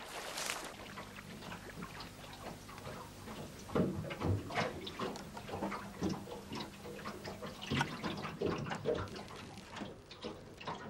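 Water splashing and dripping in short, irregular bursts, over a faint low hum.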